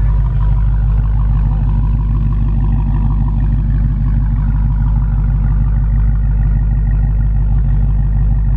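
Dodge Challenger SRT Hellcat's supercharged 6.2-litre Hemi V8 idling steadily, heard from behind the car near the exhaust, a low even note.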